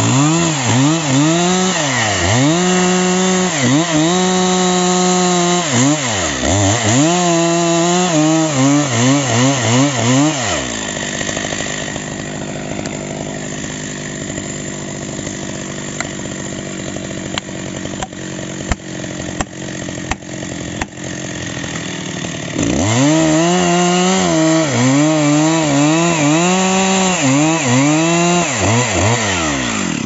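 Two-stroke chainsaw sawing the back cut of a birch trunk, its engine note dipping and recovering over and over as the chain bites into the wood. For about twelve seconds in the middle the saw runs quieter off the cut while a few sharp knocks sound, blows driving plastic felling wedges into the cut. The saw then goes back into the cut at full throttle.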